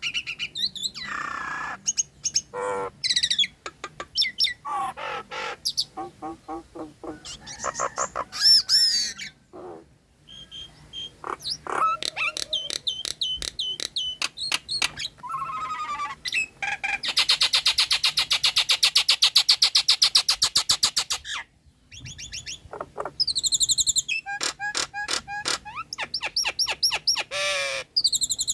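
Nias hill myna singing a varied medley of calls: quick series of clicks, whistled glides and chattering notes. About halfway through comes a long, fast rattling trill, followed by runs of short repeated whistles.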